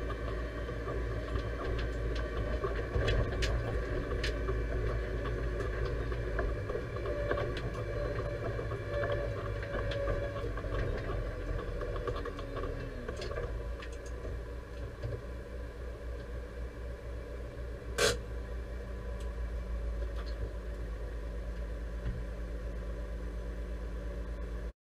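Deutz-Fahr 5100G tractor engine running, heard from inside the cab, with scattered rattles and clicks. The engine note drops a little about halfway through, and a single sharp knock stands out about three-quarters of the way in.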